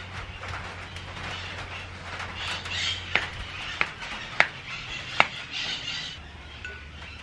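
A knife knocking and scraping on a cutting board as cut dragon fruit is pushed off into a bowl: four sharp clicks a little under a second apart.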